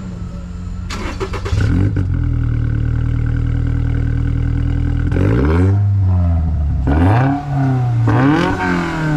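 2022 Toyota GR86's 2.4-litre flat-four through an aftermarket BRZ Exhaust S-Type muffler, heard at the tailpipes: idling, then revved up and held at a steady higher speed for about three seconds, dropped back, and blipped twice more near the end.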